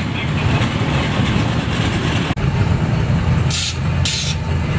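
Engines of old vehicles running as they drive slowly past: first a vintage panel van, then, after an abrupt break, an old Ford pickup, with a steady low rumble. Two short hisses sound near the end.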